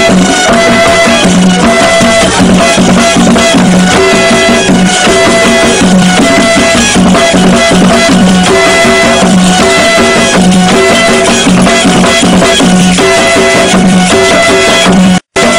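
Traditional West African drum music with fast, dense drumming under a short melodic phrase repeated over and over. The sound cuts out for a moment near the end.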